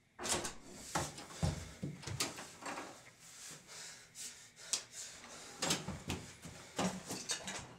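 A busy run of knocks, thumps and rustles, about a dozen sharp strokes, from a person moving about and handling things close to the microphone.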